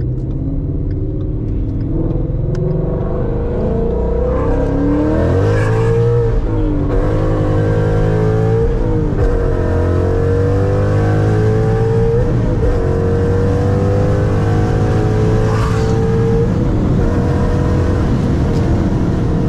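Ford Mustang GT's 5.0 V8 accelerating away from a green light, pitch rising through the gears and dropping at each upshift, then settling to a steadier drone over the last few seconds.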